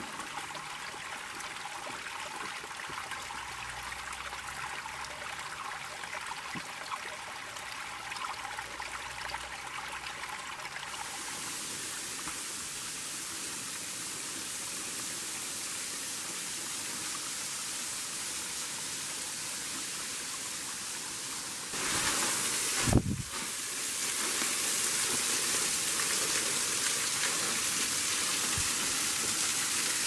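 Steady rushing of a small woodland creek and waterfall, an even hiss of flowing water. The sound turns brighter about a third of the way in, and a short louder rush of noise comes about two-thirds of the way through.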